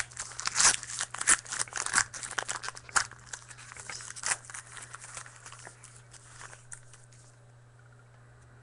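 Trading-card pack wrapper being torn open and crinkled by hand: a dense run of sharp crackles for the first five seconds or so that thins out and stops.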